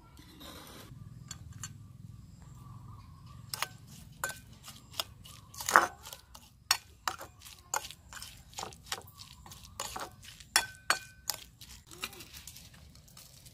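Metal spoon clinking and scraping against a ceramic plate while mixing chopped spring onions into a seasoning: an irregular run of sharp clinks, about one or two a second, some with a short ring.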